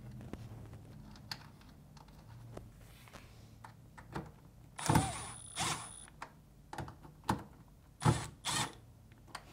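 Milwaukee Fuel cordless driver running in short bursts with a thin high whine, driving in the two mounting screws of a refrigerator water inlet valve: two quick runs about five seconds in and two more about eight seconds in. Before that, small clicks of parts being handled.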